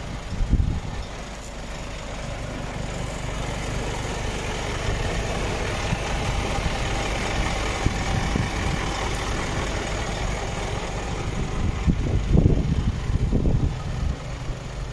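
Scania P450 truck's diesel engine idling steadily, with a few low thumps near the end.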